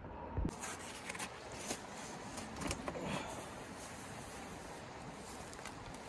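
Plastic bag crinkling and rustling in short bursts as bread is handled, over a steady outdoor noise.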